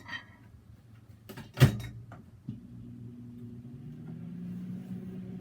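A microwave oven door clunks shut about a second and a half in, and a second later the microwave starts and runs with a steady low hum, heating the candy again.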